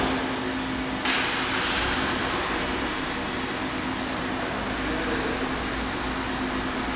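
Steady low machine hum with a constant tone, and a brief burst of hissing noise about a second in that fades away within a second.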